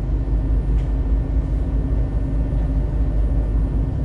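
Steady low rumble of a double-decker bus running, engine and road noise heard from inside the cabin.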